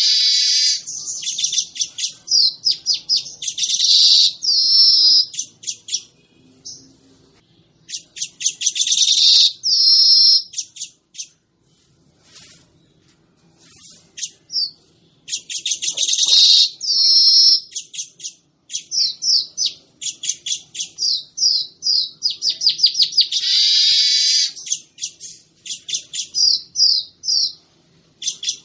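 Manyar (weaver bird) singing: repeated high-pitched, rapid chattering phrases a few seconds long, several ending in a wheezy buzz, with a pause of a few seconds near the middle.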